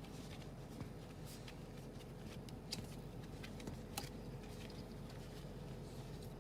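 Faint scattered clicks and light handling noise of wiring and plastic connectors being worked by hand, over a steady low hum.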